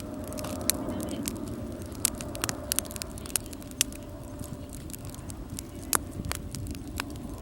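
Wood fire in a fire stand crackling, with sharp irregular pops, several a second at times, over a steady low noise.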